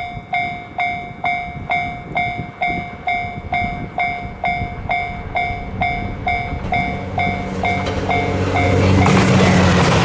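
Japanese level-crossing warning bell ringing at about two strikes a second. From about seven seconds in, the low running note of the approaching Series 87 Twilight Express Mizukaze diesel train grows. Near the end the train's passing noise covers the bell.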